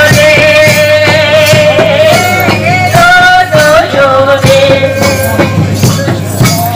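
Bastu Puja dance song, loud: a singing voice holds long, slightly wavering notes over a steady percussion beat of about two strokes a second.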